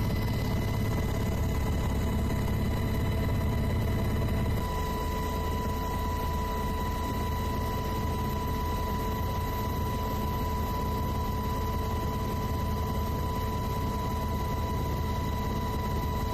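Steady aircraft engine noise heard from inside the cabin: a low rumble with a constant high whine. The sound changes abruptly about four and a half seconds in, where the footage cuts, and the whine is stronger after the change.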